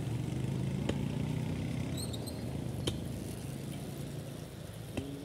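Vehicle engine idling steadily, its hum slowly fading. A few faint clicks and a brief high chirp about two seconds in.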